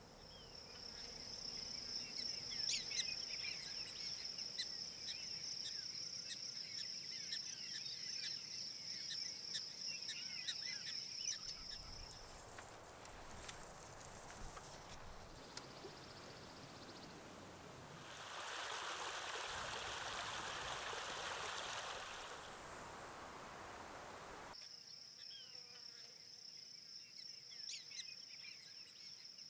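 Outdoor insect chorus: a steady high-pitched shrill with many short bird-like chirps over it. About 11 seconds in it gives way to a hiss and then a louder steady rushing noise for a few seconds. About 25 seconds in the insect shrill returns just as abruptly.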